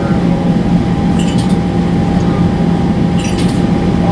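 ElDorado National E-Z Rider II MAX CNG transit bus with a Cummins Westport B Gas Plus engine, heard from on board: a steady low engine and drivetrain drone with a constant higher tone over it. Two brief clinking rattles come through, about a second in and again a little past three seconds.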